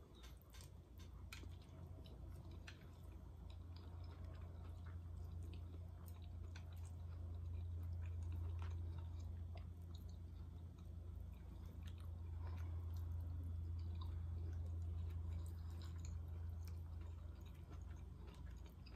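Close-miked chewing and mouth sounds of someone eating pancit noodles, with scattered short clicks from chopsticks and plate, over a steady low hum that swells in the middle.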